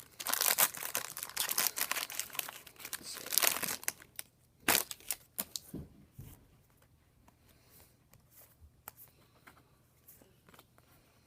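Crinkling and tearing of a baseball card pack's wrapper being ripped open, loud for about the first four seconds. After that, only faint scattered ticks and rustles as the cards are handled.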